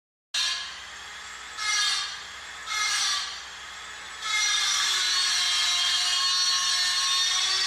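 High-pitched bicycle brake squeal: two short squeals, then a long steady squeal whose pitch sinks slightly.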